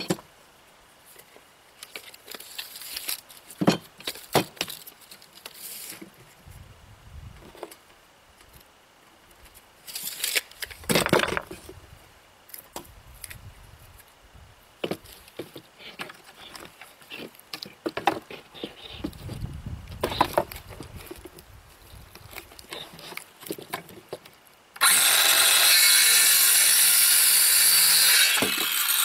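Wooden boards being handled on a plywood work table, with scattered knocks and clatters. Near the end, a circular saw runs for about four seconds, cutting through a wooden board; this is the loudest sound.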